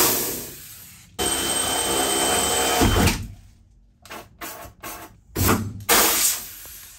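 Cordless drill boring pilot holes through the van's sheet-metal flare panel. It runs steadily for about two seconds and winds down, then comes in several shorter bursts.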